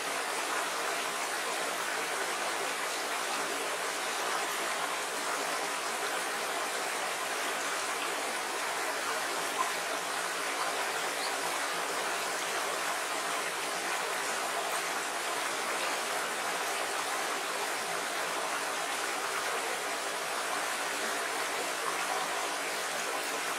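Small rocky stream running steadily, water rushing and splashing over stones in shallow riffles.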